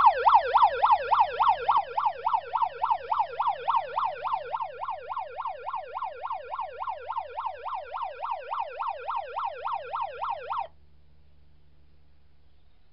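Electronic yelp siren from a radio-controlled police Range Rover Sport's sound unit, sweeping up and down about four times a second. It grows fainter and then cuts off suddenly near the end.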